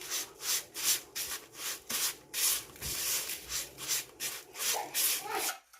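Crushed biscuit crumbs and melted butter being mixed in a bowl: a rhythmic gritty scraping in quick, even strokes, about two or three a second.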